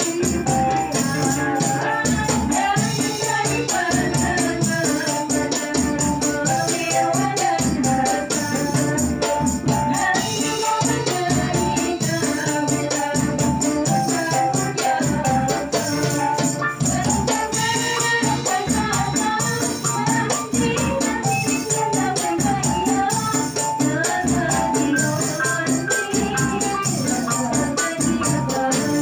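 Amplified women's voices singing an Islamic sholawat song in a modern qasidah style, over a steady beat of jingling frame drums and other percussion, with keyboard accompaniment.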